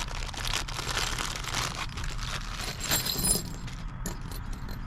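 Plastic packaging crinkling and rustling as the storage rack's bagged hardware and tools are handled, with a brief metallic ring about three seconds in; the crinkling thins out after about three and a half seconds.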